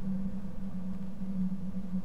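A steady low hum with an uneven rumbling noise beneath it, unchanging throughout; no bird calls.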